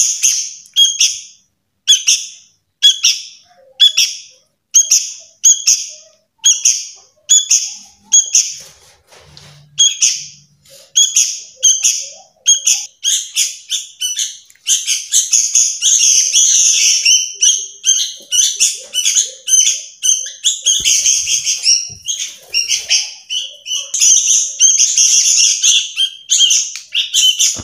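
Sooty-headed bulbul fledglings, about 20 days old, giving loud begging calls to be fed: short calls about one a second, then from about halfway a fast, unbroken chatter as food is offered by hand.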